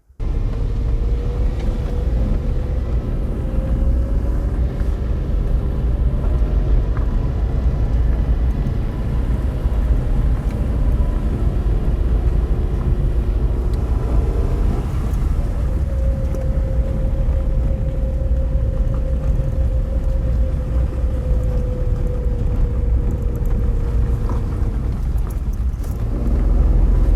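Small 1-litre car engine labouring up a steep gravel mountain road, over a heavy low rumble; the engine note steps up about halfway through, holds steady, then eases down near the end.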